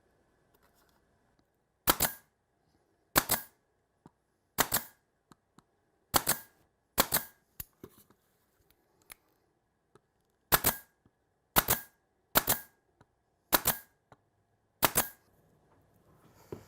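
A series of ten sharp bangs, each a quick double crack, coming about every second or so with a pause of a few seconds midway, typical of a tool striking or firing fasteners during a workshop build.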